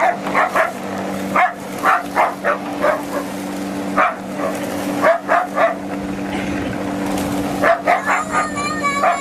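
A dog barking repeatedly in short, irregular clusters over a steady low hum, with a falling whine near the end.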